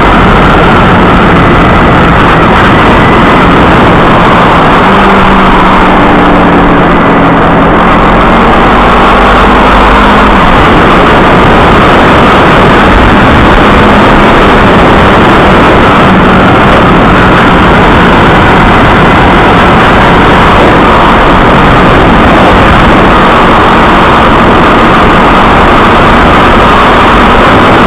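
Kawasaki Ninja 250R's parallel-twin engine running under way, with heavy wind rush on the camera microphone. The engine note shifts in pitch between about five and ten seconds in.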